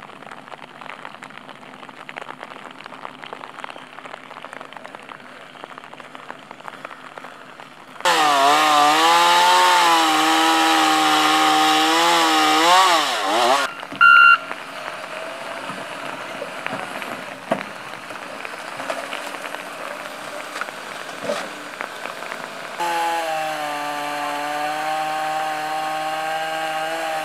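Gasoline chainsaw cutting through fallen trees: it runs at full throttle with a wavering pitch for about five seconds, stops, and runs again more steadily near the end. Before the first cut there is a steady hiss with a low engine hum, and between the cuts a short high beep.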